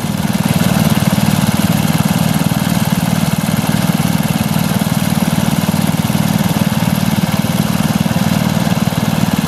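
Briggs & Stratton 3 hp small single-cylinder petrol engine running steadily with a fast, even firing beat. It is running on E10 petrol and not running that well.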